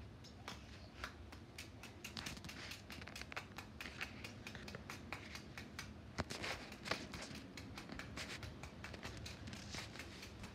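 A small hand tool scraping and chipping at a crumbly yellow toy gold bar on concrete, shedding yellow dust. It makes a quick, uneven run of faint scratches and clicks, several a second.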